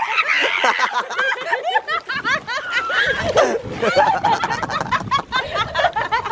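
Two women laughing hard in the sea, with water splashing around them.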